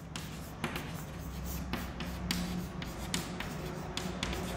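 Handwriting on a board: irregular small taps and short scratching strokes of the writing tool, over a low steady hum.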